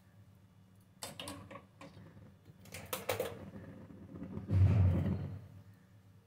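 Kitchen handling sounds: scattered clicks and clinks as a metal utensil is handled over a steel bowl and a stove knob is turned. A brief, louder low rumble comes about four and a half seconds in.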